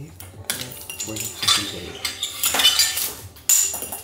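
Irregular clattering and clinking of small hard objects being handled, with several sharp knocks.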